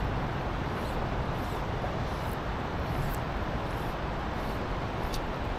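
Steady, even rushing of flowing river water, with a few faint high clicks.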